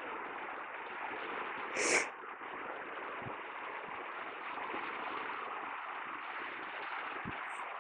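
Steady rush of small waves breaking and washing on a sandy beach. About two seconds in, one short, loud, breathy burst stands out above the surf.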